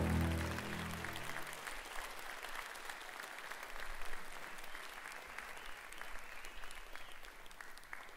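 Audience applauding, a steady patter of many handclaps, while the last held notes of the dance music fade out in the first second or so.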